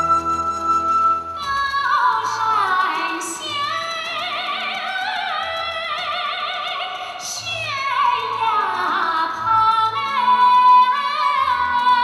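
Recorded song: after held instrumental notes, a woman's voice comes in about a second and a half in, singing long, high notes with wide vibrato in an operatic style over instrumental accompaniment.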